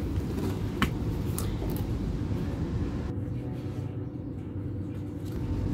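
Steady low background rumble with a faint hum, and a couple of light clicks in the first second and a half from a plastic measuring cup being handled over the rice cooker pot.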